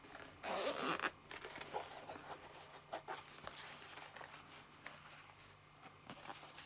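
A zipper pulled with one short rasp about half a second in, followed by faint clicks and rustles of hands handling a case and packaging.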